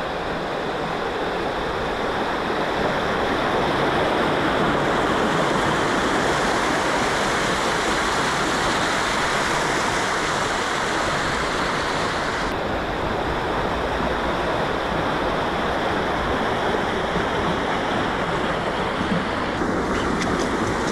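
Water pouring over a river weir and its fish ladder: a loud, steady rushing. The hiss at the top dulls suddenly about twelve seconds in.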